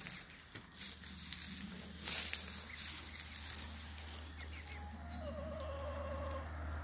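Leaves rustling as the bush is pushed aside, loudest about two seconds in. Near the end, a small speckled hen sitting on her nest gives a low, wavering call lasting about a second and a half.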